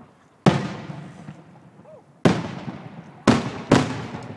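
Aerial firework shells bursting: four sharp bangs, the first about half a second in, one just after two seconds, and two close together near the end, each trailing off in a rolling echo.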